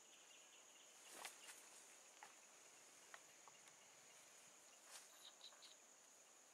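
Near silence: a faint, steady, high insect whine in the forest, with a few faint clicks or rustles.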